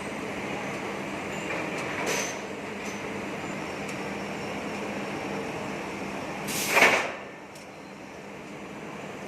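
Factory machine running with a steady mechanical hum, broken by a short burst of noise about two seconds in and a louder burst near seven seconds, after which the running noise drops a little.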